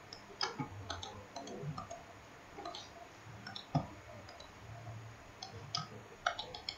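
Computer mouse button clicking faintly several times at irregular intervals, each click placing a point of a curve.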